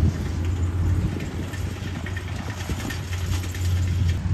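Rice combine harvester running steadily as it cuts and threshes rice: a continuous low engine hum with irregular ticking and clatter above it.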